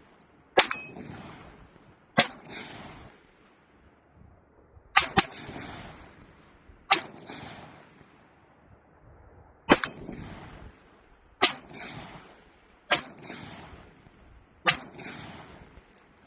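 Gunshots from a firearm at a shooting range: eight single shots fired at an uneven pace, one every one and a half to three seconds, each followed by a decaying echo.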